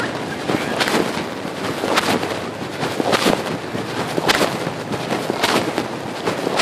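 Pocket fabric rubbing and scraping against a phone's microphone as the wearer walks, with a louder rustling scrape about once a second in step with the stride.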